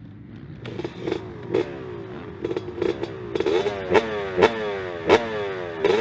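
Honda CRF250 dirt bike's single-cylinder four-stroke engine revving in repeated quick blips, the pitch jumping up and falling away about twice a second, growing louder from the middle on.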